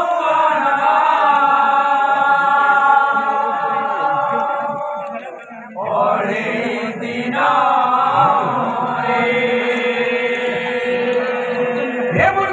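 Kirtan singers chanting together, holding long drawn-out notes; the chant breaks off briefly about halfway through and then starts again.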